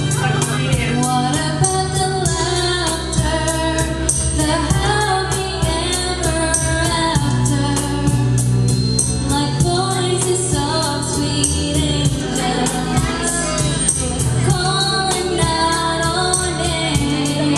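A woman singing a slow love song into a karaoke microphone over a backing track with a steady beat.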